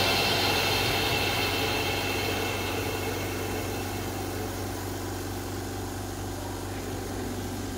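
Air hissing in the chamber of an OCA bubble remover, starting loud and slowly fading over several seconds, over the steady low hum of the machine running.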